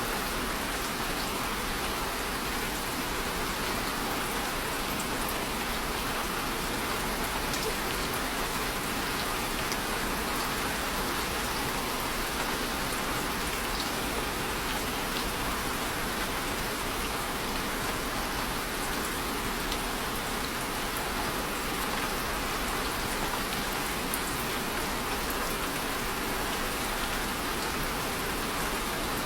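Steady rain falling: an even, unbroken hiss with faint scattered drop ticks, no change in strength.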